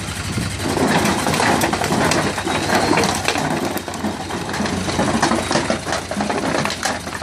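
Türk Fiat tractor's diesel engine running steadily while its rear wheel rolls over tin cans, with repeated crunching and clattering of thin sheet metal being flattened.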